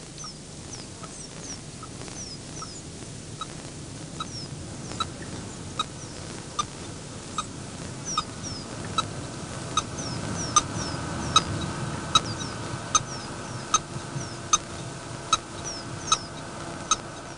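Radio-tracking receiver picking up a transmitter's pulsed signal: short beeps at an even pace, a bit under one a second, over a steady hiss, growing louder toward the middle and easing off near the end. Short high falling chirps come and go over the beeps.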